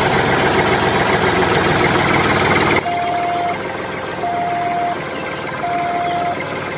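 Tractor engine running steadily; about three seconds in it settles to a slightly quieter idle and a reversing alarm starts beeping, three long beeps about a second and a half apart.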